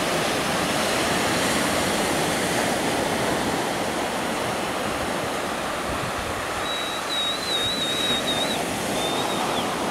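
Ocean surf: small waves breaking and whitewater rushing onto the shore in a steady, even wash. Past the middle a thin, high wavering whistle sounds for about two seconds, then once more briefly near the end.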